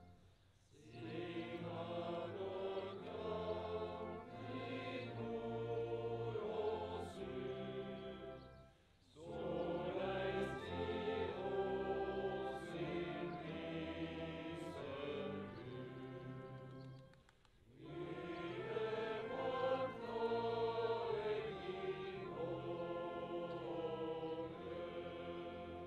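Men's choir singing in several voices, in three phrases separated by short breaks about nine and seventeen seconds in.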